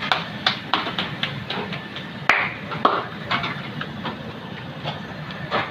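Irregular clicks and knocks of cooking utensils against a pot or pan, about two to three a second, over a steady low hum.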